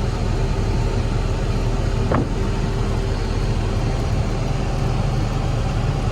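Terex TLB840R backhoe loader's diesel engine idling steadily, with one short knock about two seconds in.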